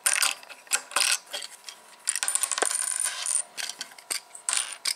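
Hard plastic toy bricks clicking and rattling as fingers press and work a small mechanism in a brick-built model. A few sharp clicks come near the start and near the end, with a denser scraping rattle lasting about a second in the middle.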